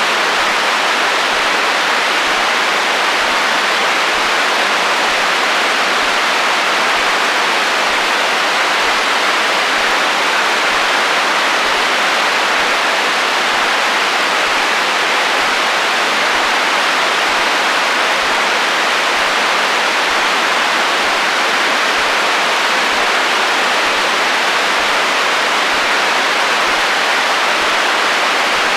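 Radio receiver static: steady interference hiss from an untuned FM receiver on the HF band, an even rushing noise centred in the mid-range with little bass.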